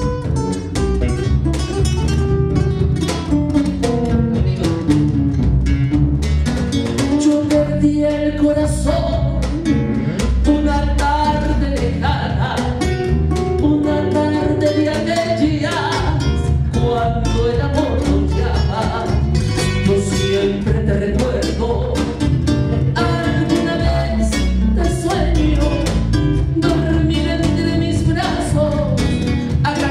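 Live Peruvian criollo music from a small band: acoustic guitar, electric bass and cajón playing steadily under a moving lead melody.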